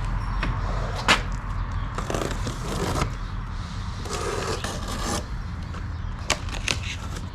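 Cardboard box being opened and its contents handled: scraping, rubbing and rustling of the packaging, with a sharp knock about a second in and a few light knocks near the end.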